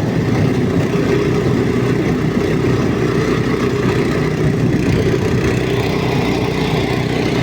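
Vehicle engine running steadily at low speed, recorded close up on board.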